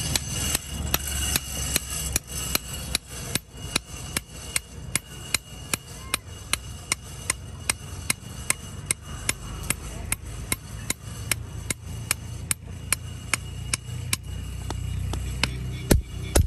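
Hand hammer striking a curved steel billhook blade on a small block anvil. The blows come in a steady rhythm of about two to three a second, each with a short metallic ring, and one harder blow lands near the end. A low rumble runs underneath.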